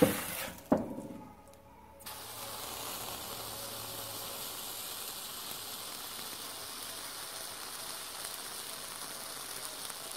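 A slice of cheese sizzling on a glowing-hot steel kitchen knife blade: a steady hiss that starts about two seconds in. Before it come two sharp knocks of the knife on the wooden cutting board.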